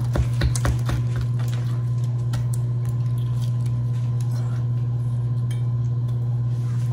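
A steady low hum, with a few light knife taps on a cutting board in the first few seconds.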